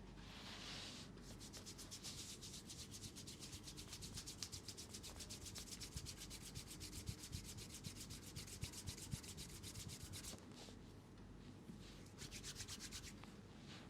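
Hands rubbing in a massage: a long run of rapid, even rubbing strokes that stops about ten seconds in, followed by a few short, softer bouts of rubbing.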